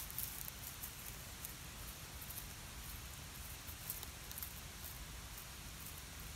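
Cat chewing and crunching a whole raw river fish, bones and all, in irregular crackly clicks.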